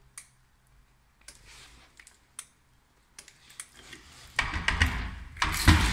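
A metal door knob being turned slowly, giving scattered faint clicks, then louder rattling and knocking from about four and a half seconds in as the knob and door are worked.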